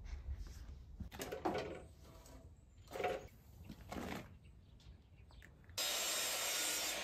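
Timber being handled on sawhorses: a few short knocks and scrapes of wood being moved and set down. About six seconds in, a loud, steady rushing hiss starts abruptly, runs for about a second and a half, and cuts off suddenly.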